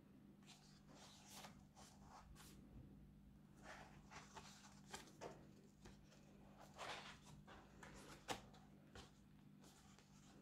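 Faint rustling and sliding of paper as sketchbook pages and loose flaps are turned by hand, with a sharp tap about eight seconds in, over a low steady hum.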